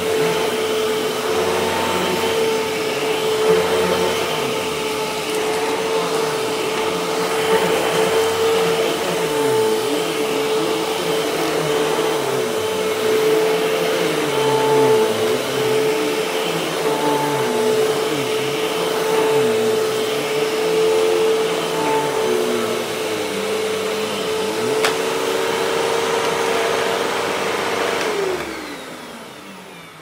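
Hoover bagless upright vacuum cleaner running with a steady motor whine, its sound wavering as it is pushed back and forth over a rug. About two seconds before the end it is switched off and the motor winds down.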